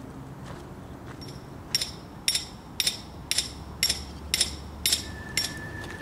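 A hammer driving a form stake into gravel: eight evenly spaced strikes, about two a second, each with a bright metallic ring.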